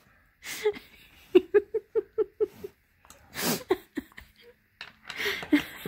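A woman laughing: a quick run of about six short, even laughs, with a few breathy bursts after it.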